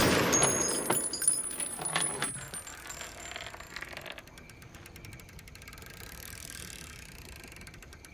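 Scattered light clinks and rattles with short high ringing notes, dying away over the first two seconds or so, then a faint steady background hiss.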